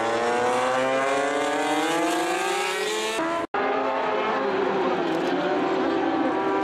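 Racing motorcycle engine accelerating hard, its pitch climbing steadily for about three seconds. It cuts out for a moment about three and a half seconds in, then high-revving racing motorcycle engines continue.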